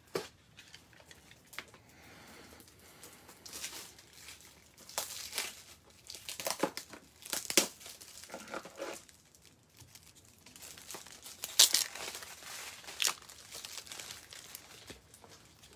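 Thin clear plastic card sleeve crinkling and rustling as it is handled, in irregular bursts with a few sharper crackles.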